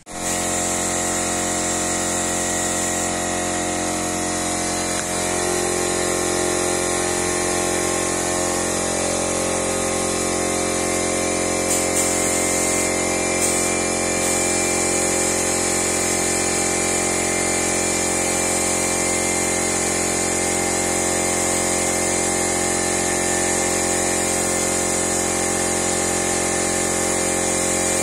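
Portable air compressor running steadily, with the hiss of a spray gun spraying PU polish onto a wooden door. Two brief clicks near the middle.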